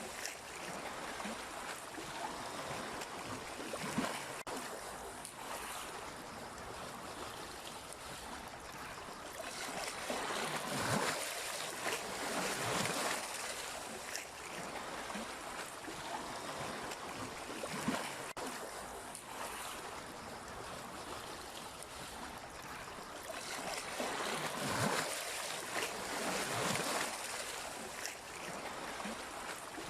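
Sea waves washing in, a steady rush of water that swells and eases every few seconds, with brief splashes.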